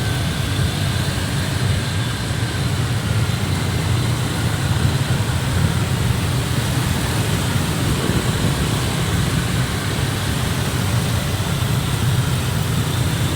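Steady mix of vehicle engines and road noise from a convoy of motorcycles and cars, with no distinct horn or rev standing out.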